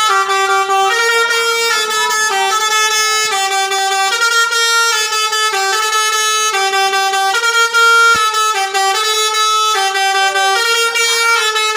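Basuri telolet horn, a multi-tone bus air horn, playing a melody. It steps quickly back and forth between a few pitches in short notes, without a break.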